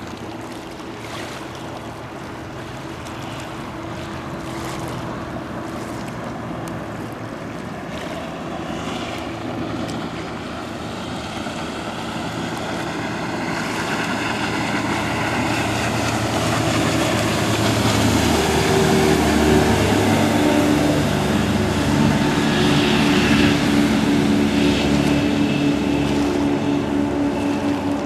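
Sea Ray express cruiser running at planing speed, its engines humming steadily under the hiss of hull spray and wake. It grows louder as the boat comes closer and is loudest in the second half.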